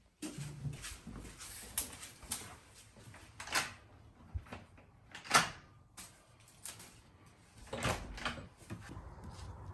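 A wooden plank door being worked open: a string of sharp knocks, clicks and rattles from its latch and boards, the loudest about halfway through.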